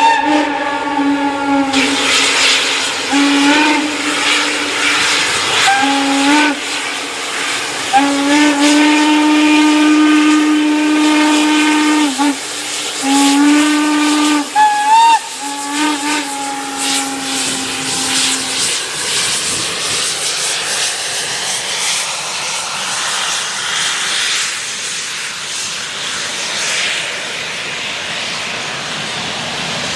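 Steam locomotive whistle blown in a series of blasts, mostly short with one long blast of about four seconds, over the first two-thirds; then the locomotive's steam hiss and working exhaust go on alone.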